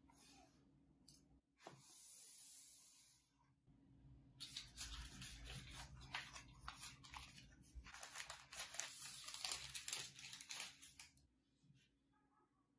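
Thin wrapping paper crinkling and rustling as it is handled, a dense crackle lasting several seconds and stopping near the end. It follows a brief steady hiss about two seconds in.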